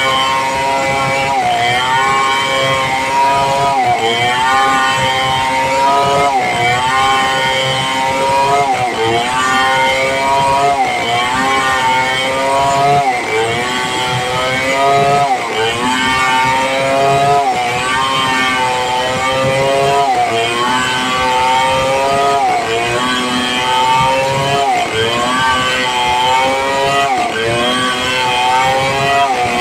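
Stihl 070 two-stroke chainsaw running at high throttle while ripping lengthwise through a red meranti log. The engine pitch sags and recovers about every two seconds as the saw is pushed into the cut.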